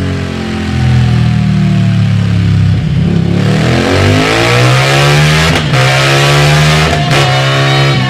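Yamaha V-Max 1700's V4 engine through Delkevic Twin Carbon aftermarket silencers. The revs fall away, then climb hard under acceleration, with two short breaks in the climb near the end.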